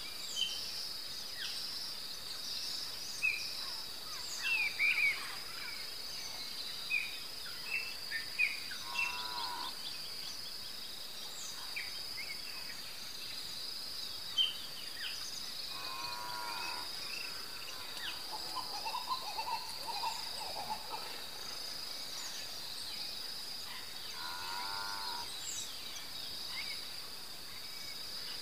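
Insect chorus: a steady high-pitched trill with scattered short chirps over it, and three times a brief, lower pitched animal call.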